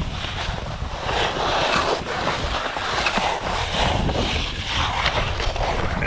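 Strong wind buffeting the microphone: a loud low rumble with a rushing hiss that swells and eases.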